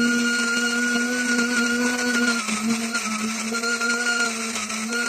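Small plastic electric coffee grinder running loud, grinding beans on a fine setting: a steady motor whine over the hiss of the grinding, its pitch sagging briefly a couple of times as the load changes.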